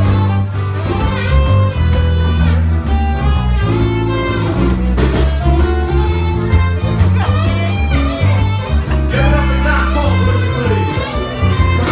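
Live band playing amplified music: electric and acoustic guitars over a drum kit, with a steady low bass line and regular drum hits.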